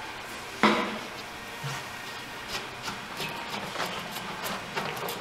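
A single sharp knock about two-thirds of a second in, then light taps and scrapes as the metal housing of a Shimpo RK-2 pottery wheel is handled on the floor.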